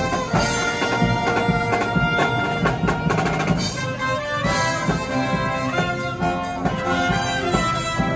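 Marching brass band playing: saxophones, trumpets, trombones and a sousaphone over bass drum and snare drum beats.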